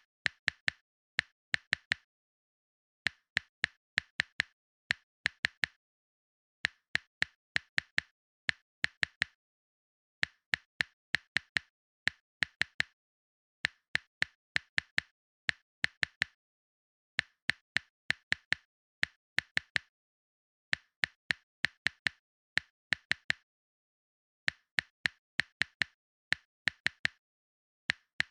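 Runs of short, sharp clicks, about four a second, each run lasting a second or two with short gaps between, over dead silence, like an edited-in tapping sound effect.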